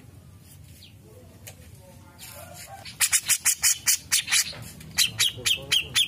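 Cucak jenggot (brown-cheeked bulbul) calling. A few soft notes come first, then from about three seconds in two loud bouts of rapid, sharp notes, roughly six a second, each slurring downward in pitch.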